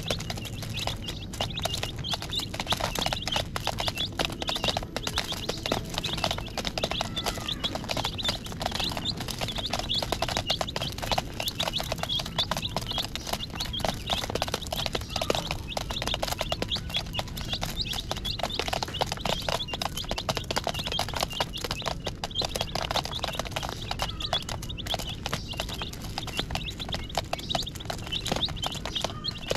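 A group of baby chicks peeping continuously while pecking feed from a plastic lid, their beaks tapping on the plastic in quick, irregular clicks.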